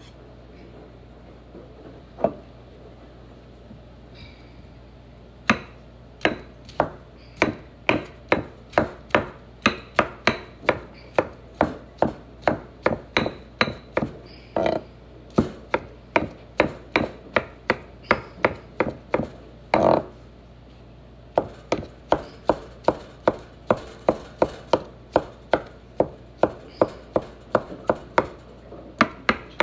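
Knife chopping vegetables on a wooden cutting board: one knock about two seconds in, then steady chopping strokes at about two or three a second, with a short pause about two-thirds of the way through.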